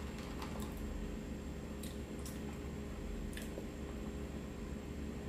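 A few light clicks of ice shifting in a plastic cup of water as it is lifted and drunk from, over a steady low hum.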